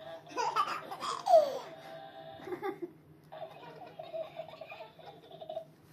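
Small children laughing and squealing loudly for the first couple of seconds, with a sharp falling squeal about a second in. In the second half an electronic sound book's small speaker plays a tune of steady held notes.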